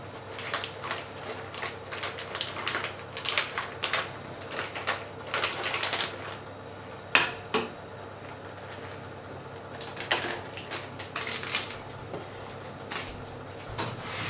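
Metal spoon clinking and scraping against a small steel saucepan while food is worked in the pan, in irregular quick taps with a pause in the middle and one louder clank about seven seconds in.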